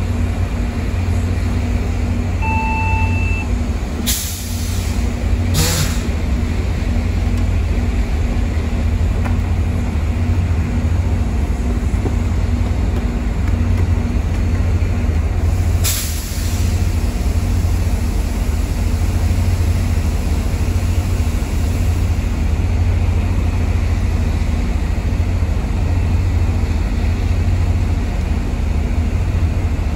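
MPI MP36PH-3C diesel locomotives idling at the platform, a steady low rumble throughout. A short electronic beep sounds about two and a half seconds in, and brief bursts of air hiss come near 4, 6 and 16 seconds in.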